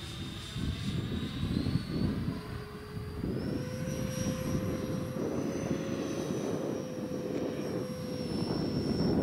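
Electric ducted fan of a radio-controlled model jet whining in flight over a rushing low noise. The whine steps up in pitch twice in the first few seconds as the fan spools up, then holds steady and eases slightly near the end.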